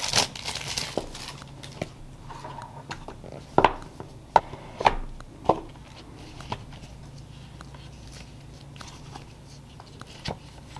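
Clear plastic wrap crinkling as it is pulled off a cardboard product box, then scattered sharp taps and knocks as the box is opened and its paper inserts handled.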